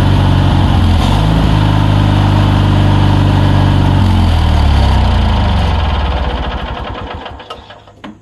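Riding lawnmower engine running hard while it drives a mounted front-tine tiller. It sags briefly about a second in, then winds down in pitch and dies away as it is shut off, with a click near the end.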